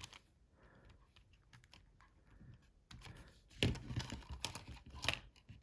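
Small plastic clicks and taps from the parts of a Nokia 5220 XpressMusic phone's housing being handled and pried at, faint at first and coming in a quick cluster of louder clicks from about three and a half seconds in.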